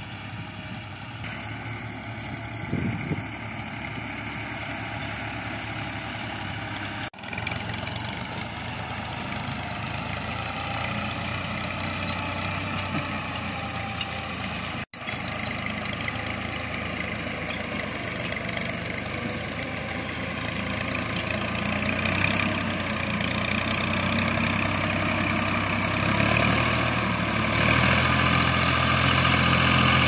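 Diesel tractor engine running steadily while pulling a trolley loaded with harvested wheat. It grows louder over the last third as the tractor comes close.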